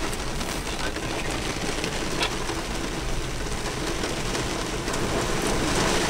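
Steady rushing of heavy rain and wind, with a few scattered sharp hits.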